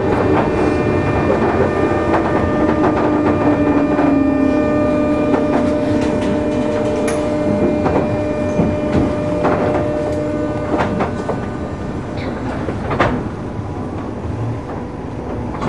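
Electric commuter train slowing into a station, heard from on board. The motor whine falls in pitch as it brakes, wheels click over rail joints, and the running noise eases toward the end.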